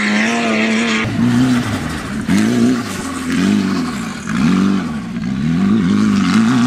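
Off-road race cars' engines revving hard. The note is held high for about a second, then climbs and drops again and again, about once a second, as the throttle is worked on and off.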